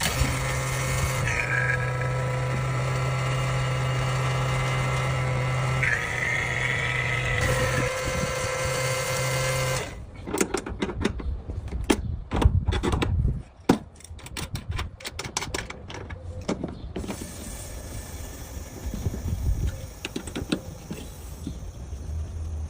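Vacuum pump running steadily for about ten seconds, then stopping abruptly. After that come irregular clicks and knocks of tool and fitting handling.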